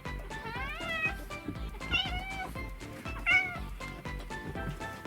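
Cat meowing: three drawn-out calls that rise and fall in pitch, over background music.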